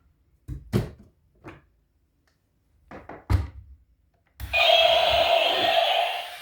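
Hard plastic toys knocking and thunking as they are handled, a few separate knocks, then a little over four seconds in a toy's loud electronic sound starts and holds steady.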